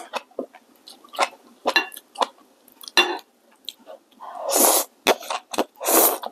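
Noodles being slurped in two long rushes near the end, between short wet smacks and clicks of chewing.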